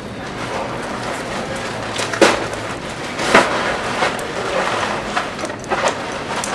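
Crinkling and rustling of white gift wrapping as a present is handled and pulled open, with sharper crackles about two seconds in, again after about three seconds, and near the end.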